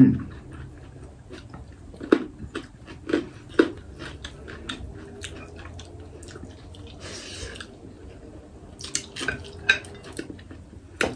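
Two people eating with their hands: chewing, with lip smacks and scattered short clicks of fingers and food against plates. A brief rustling crunch comes about seven seconds in.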